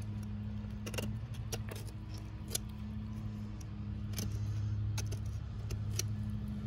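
Fillet knife working around the cheek of a gag grouper's head, giving irregular sharp clicks and light scrapes against bone and the cutting board. A steady low hum runs underneath.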